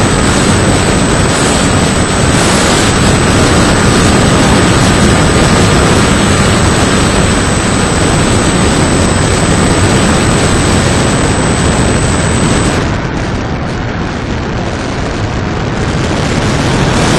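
Model airplane's Turnigy 480 brushless electric motor and propeller, heard from an action camera taped to the airframe, with loud wind rush over the microphone and a steady motor whine. The owner thinks the propeller needs balancing. About 13 s in the sound drops and loses its hiss, then picks up again near the end.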